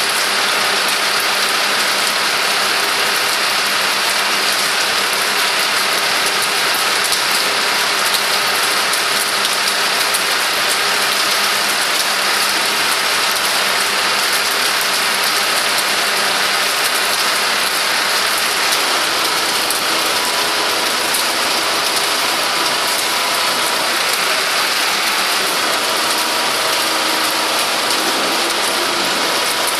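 Steady rain falling on wet paving, an even dense hiss, with a faint engine hum beneath it.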